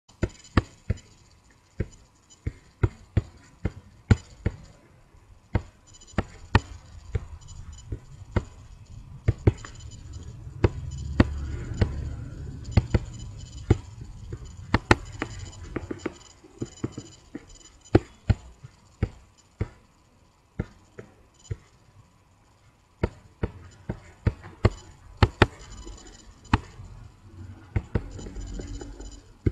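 Computer mouse clicking at an uneven pace of about one to three sharp clicks a second, with a low rumble in the middle stretch.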